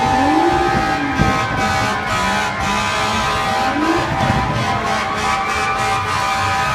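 Fire truck air horn blaring in long, steady blasts, with a siren rising and falling in pitch underneath near the start and again about four seconds in.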